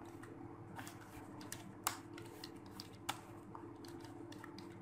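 Faint computer-keyboard typing: irregularly spaced keystrokes, with a couple of sharper clicks about two and three seconds in, over a steady low hum.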